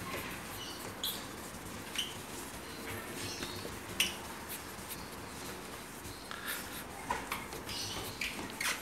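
A cloth rubbing polishing compound over a yellowed plastic car headlight lens, scrubbing with brief high squeaks every second or two, coming more often near the end.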